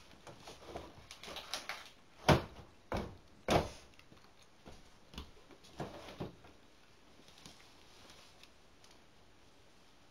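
Young calico cat eating from a bowl on a plastic tray: a run of sharp clicks and knocks, the three loudest between about two and four seconds in, fainter ones a little later, then quiet.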